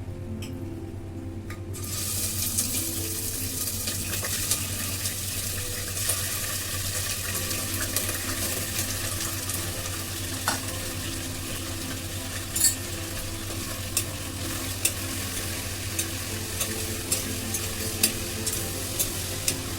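Mutton frying in hot ghee in a pressure cooker pan: a loud sizzle starts suddenly about two seconds in as the meat goes into the hot fat and carries on steadily. Sharp clinks of a spoon stirring against the pan come every second or so in the second half.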